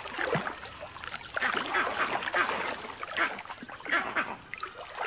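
Muddy water splashing and sloshing in irregular surges as crocodiles thrash in a shallow pool.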